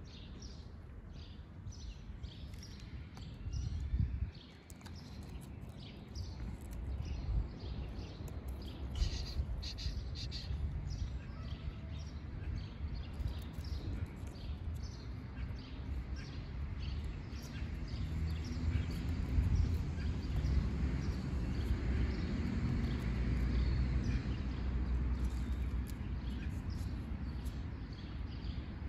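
Small birds chirping in many short, quick calls over a low, steady rumble of outdoor background noise.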